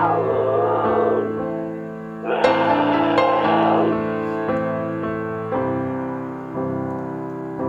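Piano music with animal calls over it: one falling call right at the start and a longer, wavering call from about two to four seconds in.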